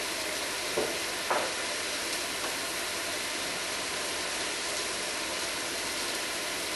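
Steady sizzle of food frying in a pan, with two brief clicks about a second in.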